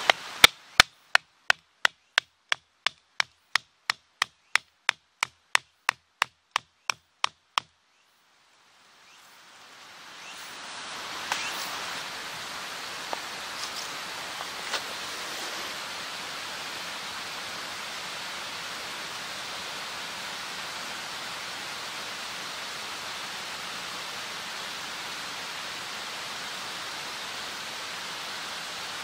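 Rapid, evenly spaced chopping on wood, about twenty strikes at roughly two and a half a second, which stops after about seven seconds. After a brief silence a steady rushing noise fades in and carries on, with a few faint clicks.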